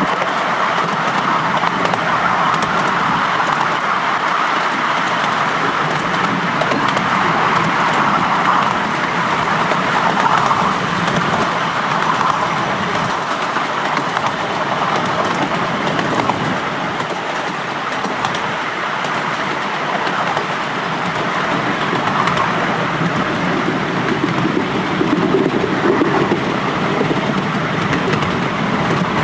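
Miniature railway train running steadily, heard from its rear carriage: an even rolling noise of the carriages on the track behind a small steam locomotive.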